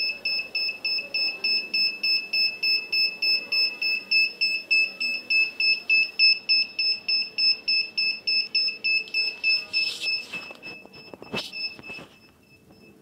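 Electronic buzzer of an ultrasonic distance sensor circuit beeping rapidly, about four high-pitched beeps a second. Near the end there are a few handling knocks, then the beeping stops.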